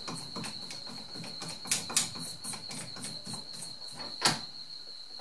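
Metal clicks and knocks from lathe tooling being handled, the loudest near the end, over a steady high insect trill.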